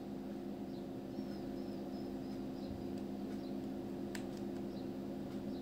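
Steady low electrical hum of the recording's background, with a series of faint high chirps in the first half and a single sharp click about four seconds in.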